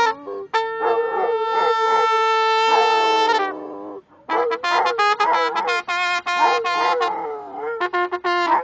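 A trumpet holds one long steady note, breaks off briefly, then plays a run of shorter notes, while a Rhodesian Ridgeback howls along with a wavering, bending pitch.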